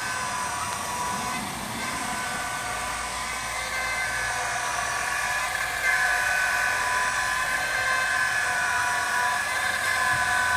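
Two 12-volt electric motors turning a Hill high-pressure hand pump through a roller-chain and sprocket reduction, running with a steady whine.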